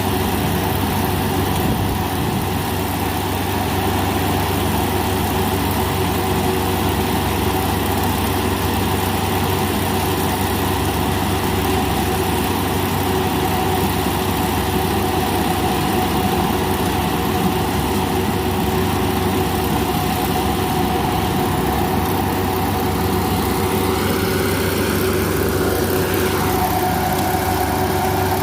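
Engine of a rice combine harvester running steadily, with a brief shift in pitch about 24 seconds in.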